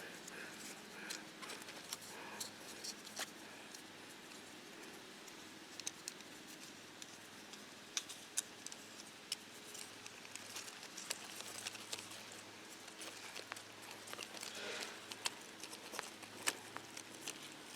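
Faint, scattered clicks and light rustling of handling as metal measuring calipers are fetched and fitted against a large beet.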